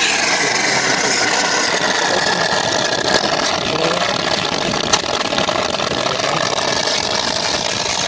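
Warm vinegar-and-water descaling solution gushing under pressure out of the open drain port of a Suburban RV water heater and splashing over the access panel: a steady rushing splash that eases only slightly. The water comes out frothy.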